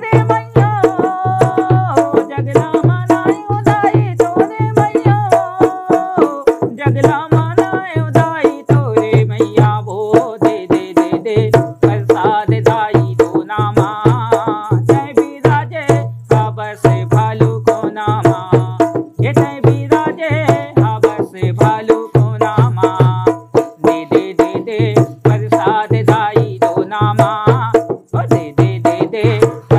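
A man sings a Chhattisgarhi jas geet, a devotional folk song, in a nasal voice, accompanying himself on a dholak whose strokes keep a steady beat. He sings in the 'echo voice' style, repeating syllables as if they were echoing back.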